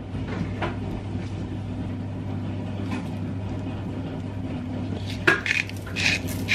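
A steady low hum with faint clicks of a metal spoon over a tray of cut squash and sweet potato. A sharp tick comes about five seconds in, then a few short scratchy sounds as seasoning goes onto the vegetables.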